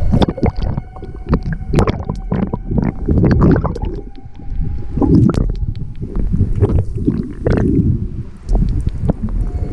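Sea water heard through an action camera's waterproof housing as it goes under: splashing at the start, then muffled underwater gurgling and bubbling over a low rumble, broken by many sharp clicks and knocks.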